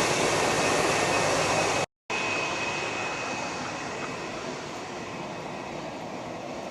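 McDonnell Douglas MD-83's rear-mounted Pratt & Whitney JT8D jet engines running, a steady jet noise with a thin high whine. It drops out completely for a moment about two seconds in, then comes back quieter and slowly fades.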